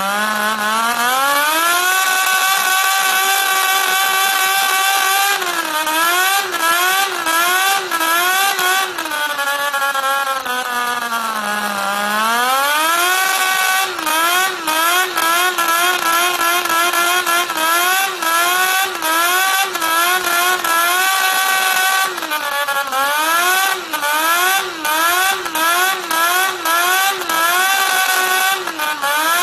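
Small model Wankel rotary engine running and being revved by hand. It climbs from a low idle to a high steady speed, then is blipped up and down again and again. About twelve seconds in it drops back to idle before climbing again.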